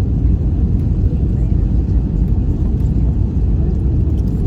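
Steady low rumble heard inside an Airbus A320 passenger cabin: the aircraft's engine and airframe noise.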